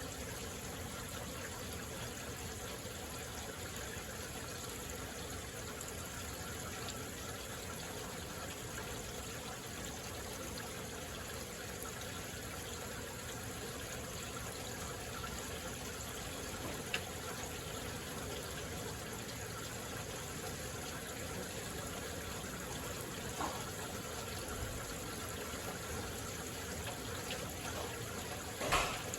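Moderate rain falling steadily, a continuous even hiss with no thunder. A few sharp ticks stand out, the loudest one near the end.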